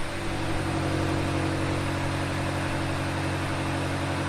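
BMW XM's twin-turbo V8 idling steadily, an even, unchanging note.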